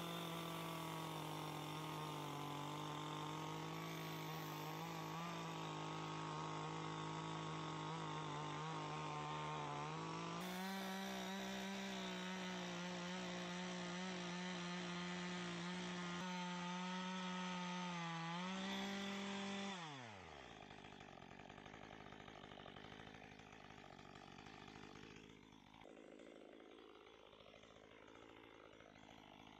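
Chainsaw cutting into a tree trunk, its motor held at a steady high pitch, stepping slightly higher about a third of the way in. About two-thirds of the way in the throttle is released and the pitch falls away to a much quieter low running, then it speeds up again right at the end.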